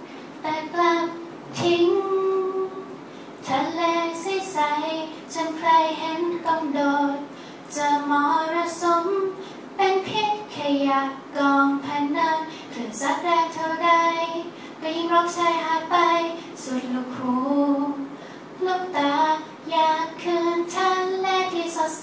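A woman singing a Thai song solo into a microphone, with no instruments heard, in phrases of held notes that move up and down in pitch.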